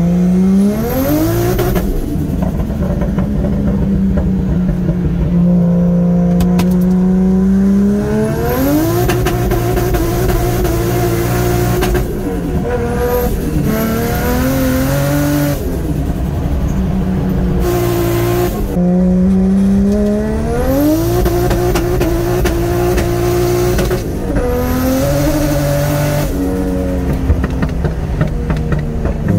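Drift car's turbocharged 1JZ-GTE straight-six revving hard in the wet, heard from inside the cabin. The revs climb steeply about five times and each time hang at a steady high pitch for a few seconds before falling away. The driver puts this down to no traction, meaning the wheels spin and the engine spends a lot of time on the limiter.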